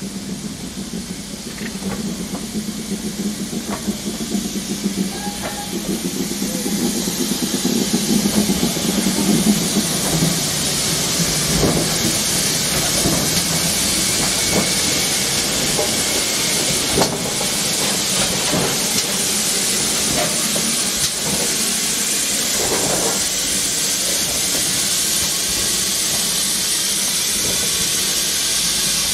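GWR King class 4-6-0 No. 6023 steam locomotive moving slowly past, steam hissing from its open cylinder drain cocks. The hiss grows louder over the first ten seconds and then holds steady, with a few metallic knocks from the running gear.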